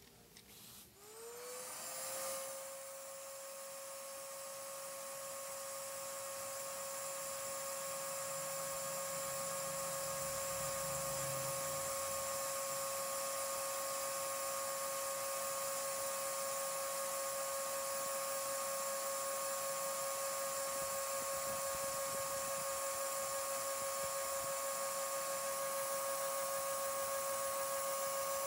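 Vacuum cleaner motor starting about a second in, its whine gliding up and then holding one steady pitch over rushing air, driving a LEGO Technic vacuum piston engine that runs up to speed, with the sound growing louder over the first ten seconds and then holding steady.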